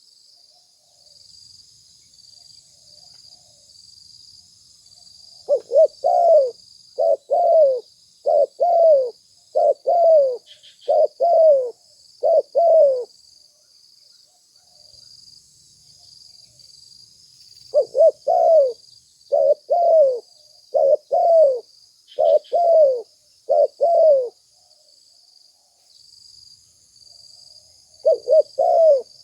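Spotted dove cooing in bouts of about seven paired low coos, with pauses of several seconds between bouts and a new bout starting near the end. A faint steady high-pitched buzz runs underneath.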